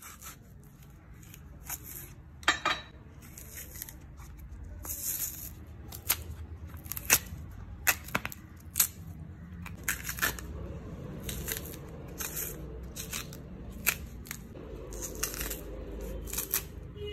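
A knife slitting and scraping the skin of raw green plantains: a quick series of sharp scrapes and snaps at irregular intervals as the tough peel is cut and pried off. Near the end the peel is pulled away from the fruit by hand.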